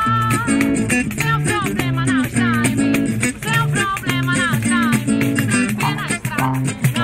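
Small acoustic samba band playing live: a woman sings over a strummed guitar, with trombone and hand percussion keeping a steady beat.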